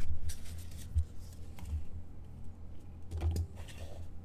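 A trading card box and its contents being handled on a tabletop: scattered light clicks, taps and soft knocks as the cardboard box is opened and the pack lifted out.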